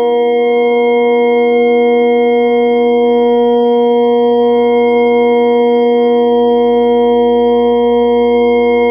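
Vocoder sound effect: a synthesized drone held on one unchanging pitch, with several steady overtones.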